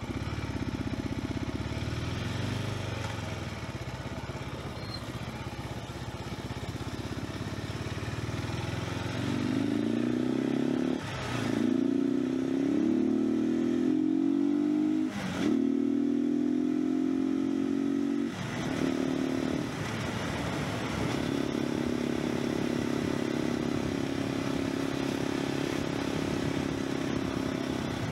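Cagiva River 500's single-cylinder four-stroke engine running at low revs, then pulling hard and revving up through the gears, with three brief dips in the sound at the gear changes, before settling into a steady cruise.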